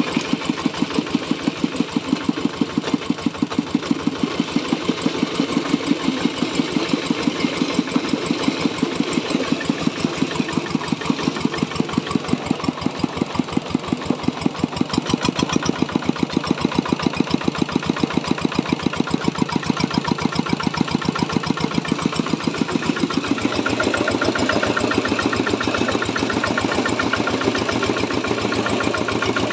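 Diesel engine running a corn grinding mill, a steady machine sound with an even pulsing beat of about three to four a second. In the last quarter the sound turns fuller and the beat less sharp.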